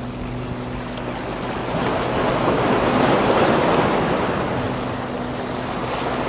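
Sea waves washing against breakwater rocks, one surge swelling loud in the middle and easing off, with wind on the microphone.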